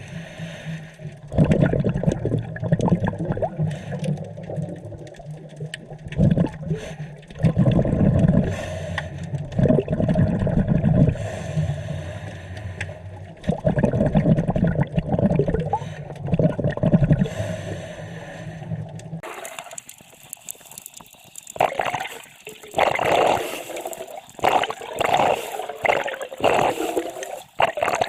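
Underwater bubbling and gurgling from a scuba diver's regulator exhaust, surging with each breath every few seconds. About two-thirds of the way through the sound changes abruptly to higher, choppier bubbling.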